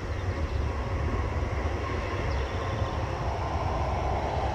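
Steady rumble of a road vehicle with a faint whine, growing a little louder in the second half.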